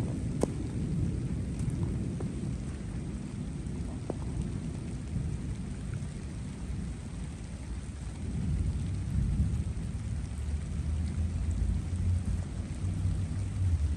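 Steady rain with a low, rolling rumble of thunder that swells about eight seconds in, and a few sharp drop-like ticks near the start.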